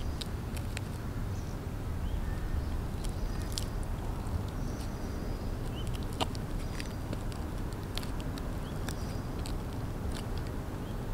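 Stiletto heels of 6-inch platform sandals tapping and scuffing on a concrete pavement as the wearer shifts and steps, giving scattered, irregular sharp clicks over a steady low outdoor rumble.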